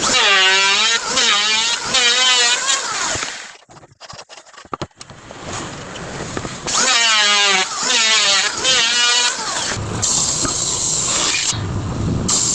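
Background music: a wavering vocal-like phrase heard twice with a short pause between, then a noisier passage near the end.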